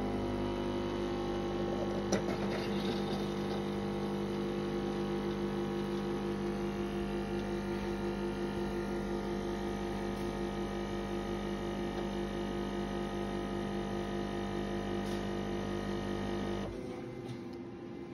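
Dr. Coffee Coffee Center superautomatic coffee machine humming steadily while it brews and pours espresso, with a brief click about two seconds in. The hum cuts off suddenly near the end as the shot finishes.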